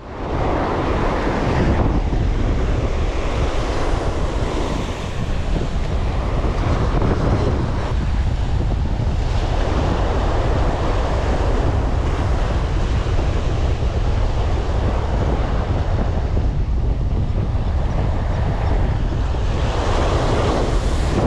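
Ocean surf breaking and washing up a sand beach, swelling every few seconds, under steady wind noise on the microphone.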